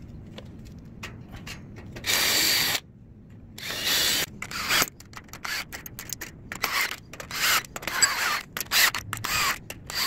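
Cordless 20-volt drill driving screws through small metal brackets into a wooden frame, running in repeated short bursts, the longest just under a second, after a couple of seconds of light clicks as screws are handled.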